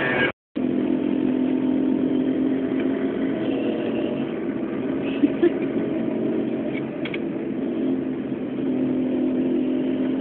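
Street traffic with a vehicle engine running steadily, after a brief dropout near the start; two short clicks sound about five seconds in.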